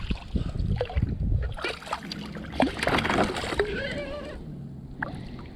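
A hooked ladyfish splashing and thrashing at the surface beside a kayak, a cluster of splashes coming about two to three seconds in. Wind buffets the microphone with a low rumble at first.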